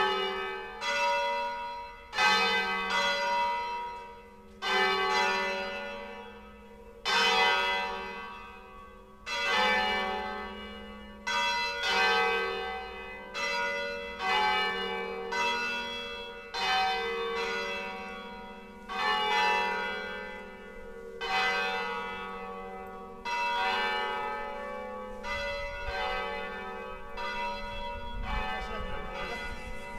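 Church bells ringing in a slow peal: a new stroke about every two seconds, each note ringing on and fading. Near the end the strokes run together into more continuous ringing.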